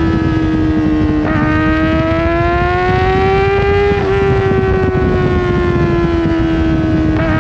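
Kawasaki ZX-4RR's 399 cc inline-four with a full aftermarket exhaust wailing at high revs. There is a brief break about a second in, as in a gear change, then the pitch climbs slowly for a few seconds and eases off again, with another short break near the end.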